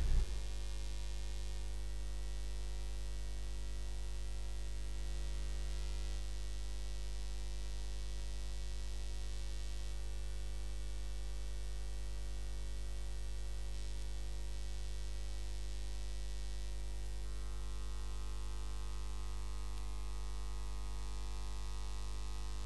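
Steady electrical mains hum with a stack of higher hum tones and a faint hiss, unchanging throughout; no speech.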